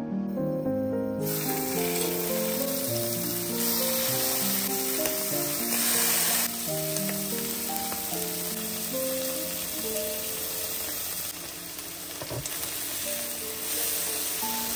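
Slices of liver sizzling as they fry in oil in a pan, starting about a second in, under background music with piano-like notes.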